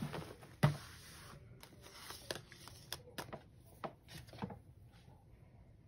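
Handling noise as paper items and a cloth bag are set down and arranged on a table: a few light taps and clicks, the sharpest about half a second in, with soft paper rustling between them.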